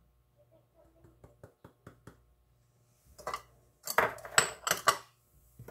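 Glass prep bowls and dishes being handled: a few light taps, then a cluster of loud clinks and knocks about four seconds in.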